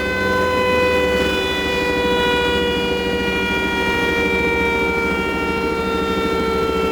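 KTM 390 Adventure's single-cylinder engine, fitted with a Dominator aftermarket exhaust, idling on a dyno after a pull, with a high whine that slowly falls in pitch as the drivetrain and roller coast down.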